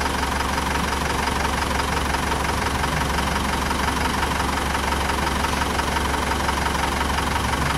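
Land Rover Defender 90 challenge truck's engine idling steadily, with no revving.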